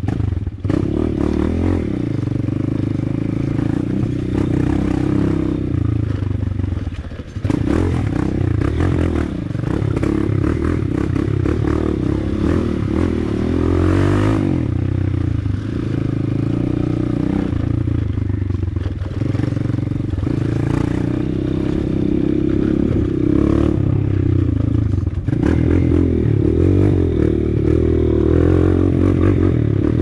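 Motorcycle engine running steadily while under way, with clattering; the sound dips briefly about seven seconds in and again about twenty-five seconds in.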